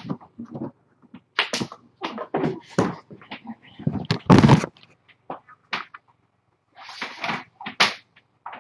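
Handling noise from the webcam being bumped and tipped sideways: a rapid run of irregular knocks, rustles and clicks, with the loudest thump about four seconds in.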